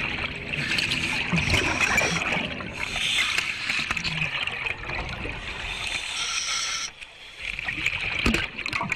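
Underwater scuba bubbling: divers' regulator exhaust bubbles with a steady hiss. There is a short lull about seven seconds in, followed by a few sharp clicks.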